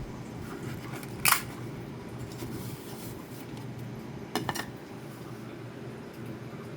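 A sharp click about a second in and a quick double click a little past the middle, over a steady low hum.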